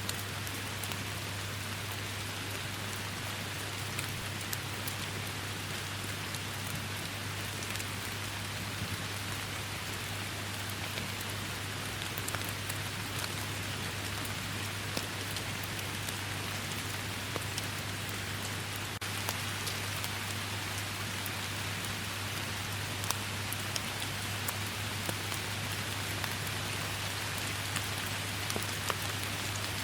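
Steady heavy rain, an even hiss with many separate drops ticking at random through it. A constant low hum sits underneath.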